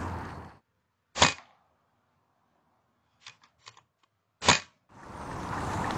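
Two shots from an FX Dynamic Compact PCP air rifle, sharp cracks about three seconds apart, with a few faint clicks between them.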